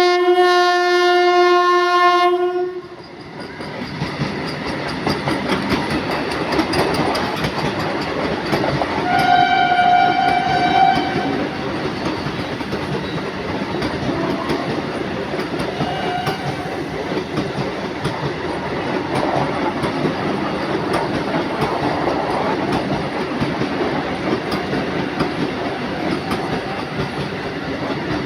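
Vande Bharat sleeper trainset sounding a loud horn blast of about two and a half seconds, then running with a steady rumble and clatter of wheels on the track. A second horn blast of about two seconds comes about nine seconds in, with a couple of short faint toots later.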